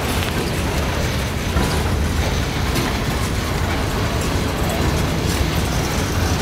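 Freight train cars rolling past on the rails: a steady rumble of steel wheels on track.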